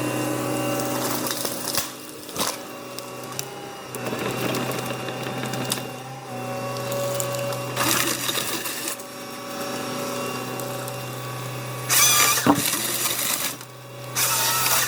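Forestry harvester machine working: a steady engine drone with several short noisy bursts of the saw cutting.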